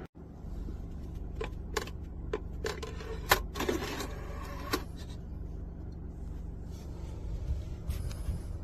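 Steady low rumble inside a car cabin, with a handful of sharp clicks and short rustles about two to five seconds in.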